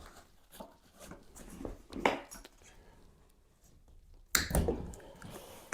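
A few light knocks and scrapes of hand work, then a loud sniff through a runny nose about four seconds in.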